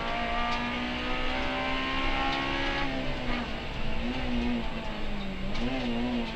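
Honda Civic Type-R FN2 rally car's 2.0-litre four-cylinder engine at high revs, heard from inside the cabin at speed, with road noise underneath. Its pitch climbs slowly, drops about three seconds in, then wavers up and down.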